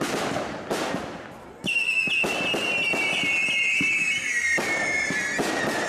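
Fireworks display: several sharp bangs of bursting shells. From about two seconds in, a long whistling firework sounds over the bangs, slowly falling in pitch.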